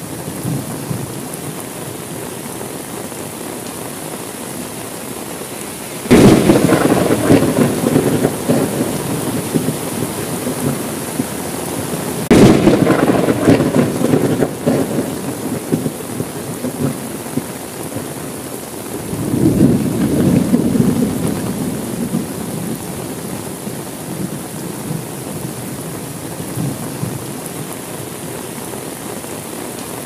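Steady rain with thunder. A sudden loud thunderclap comes about six seconds in and another around twelve seconds, each rolling off over a few seconds. A softer rumble swells and fades about twenty seconds in.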